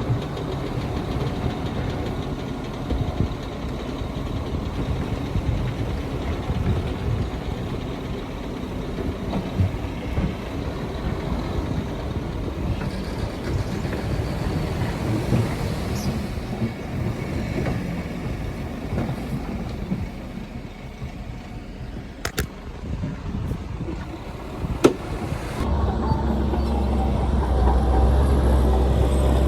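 Heavy diesel earthmoving machinery running, a low rough engine rumble, with a few sharp clicks late on; near the end a louder, steadier low engine drone sets in as a machine comes closer or works harder.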